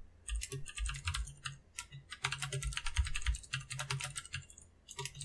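Typing on a computer keyboard: quick runs of key clicks broken by brief pauses.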